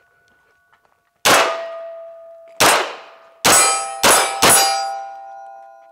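Five single shots from a 9mm MP5-clone carbine, each followed by a steel target ringing with a clear tone as the round hits. The first comes about a second in; the last three come in quick succession.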